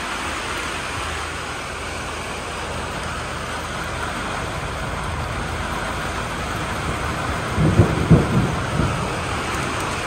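Steady rush of water from a rain barrel's overflow pipe running hard onto gravel, mixed with heavy rain. A few low thumps come about eight seconds in.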